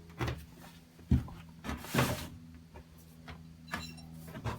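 A few separate clunks and knocks of metal parts being handled and shifted, the loudest about a second in and about two seconds in, over a steady low hum.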